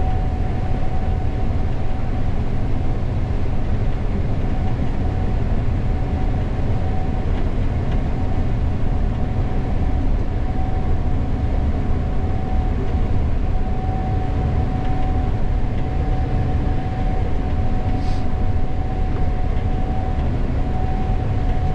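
Gleaner S98 combine running under load while harvesting corn, heard from inside the cab: a steady low rumble of engine and threshing machinery with a steady high whine over it.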